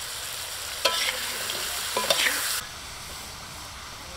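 Green peppercorns sizzling in oil in a wok, with a spatula clinking and scraping against the pan about a second in and again about two seconds in. The sizzle drops away suddenly a little past halfway.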